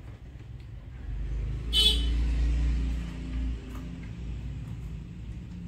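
A motor vehicle passing by: a low rumble that swells about a second in and dies away about three and a half seconds in, with a brief sharp sound near its loudest point.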